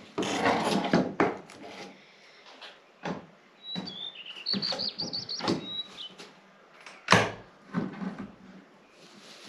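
A series of knocks and clatters, the sharpest about seven seconds in, with a small bird chirping a short run of high notes in the middle.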